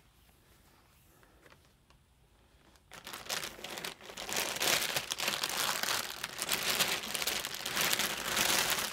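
Clear plastic bag full of yarn balls crinkling as hands rummage through it, starting suddenly about three seconds in after a quiet stretch and going on without a break.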